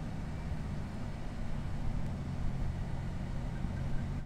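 Steady engine and road noise of a car driving at an even speed, heard from inside the cabin as a low hum.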